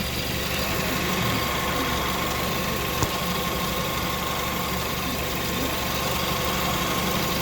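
2006 Kia Sportage's 2.0 four-cylinder engine idling with a steady squeal from its drive (fan) belt, the sign of a slipping belt. A brief click sounds about three seconds in.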